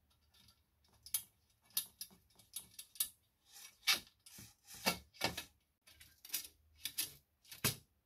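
Metal spokes and spoke nipples clicking and ticking against a bicycle rim and hub while a wheel is laced: a string of sharp, irregular clicks, about two a second.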